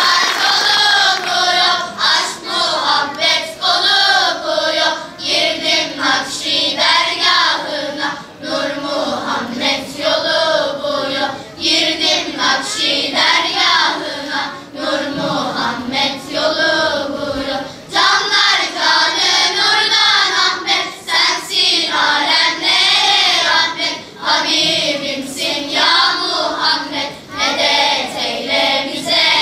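A children's choir singing a song together on stage, many young voices in one sustained line with short breaks between phrases.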